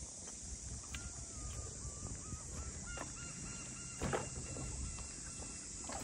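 Steady high drone of cicadas with the walker's footsteps, the loudest step near the middle. From about a second in to near the end, a pulsing call holds at one pitch.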